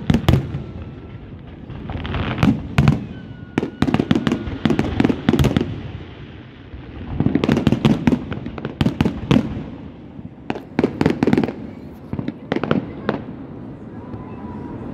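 Aerial firework shells bursting in a display, sharp bangs coming in quick clusters every couple of seconds with brief lulls between.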